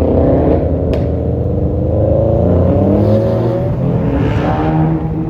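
Car engine accelerating under load, its pitch climbing, dropping at a gear change and climbing again, with a sharp click about a second in.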